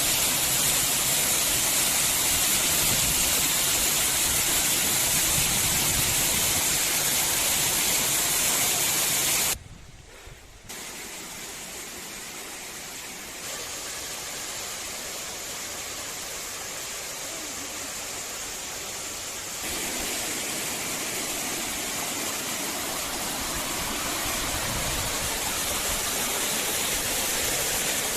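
Waterfall water rushing in a steady, even noise. It drops abruptly about ten seconds in to a quieter, duller rush, then grows louder again about twenty seconds in.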